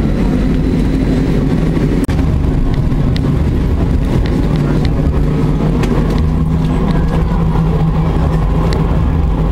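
Tram running, heard from inside the passenger car: a steady low rumble of wheels and running gear, with a steady low hum joining about halfway through and a brief dropout about two seconds in.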